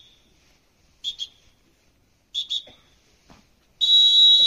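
A whistle blown in pairs of short blasts about every second and a half, then one long, loud blast near the end. These are rope-lowering signals: the short whistles tell the rope handler to let the rope out slowly, and the long, loud blast tells him to stop.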